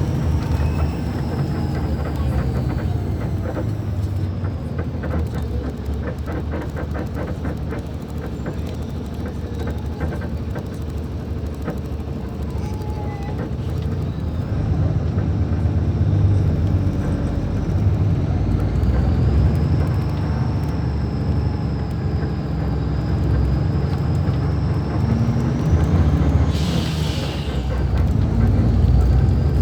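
Diesel engine of a Mascarello Roma M4 bus on an Iveco chassis running with a deep rumble, growing louder from about halfway through as it works harder. A thin high whine glides down and back up above it. A short hiss of air comes about three seconds before the end.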